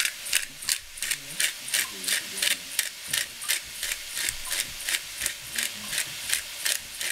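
Hand-twisted pepper grinder grinding peppercorns onto cabbage in a pot: a steady run of crisp grinding clicks, about three a second.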